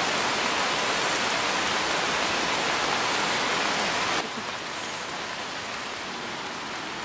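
Steady rushing hiss like rain or running water, which drops abruptly to a lower level about four seconds in.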